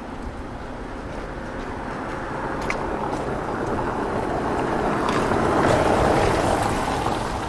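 A car driving past on wet pavement, its tyre hiss swelling to a peak about six seconds in and then fading.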